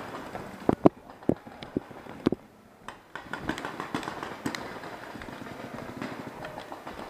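Sharp pops of paintball markers firing: about half a dozen irregular shots in the first three seconds. After that comes a lower, steady rustle with small ticks.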